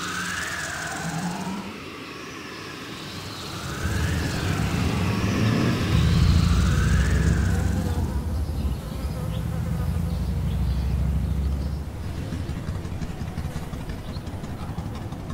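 Repeated whistling calls that rise and fall in pitch, then a low mechanical rumble that swells in about four seconds in and eases off after about twelve seconds, as of a tracked robot approaching.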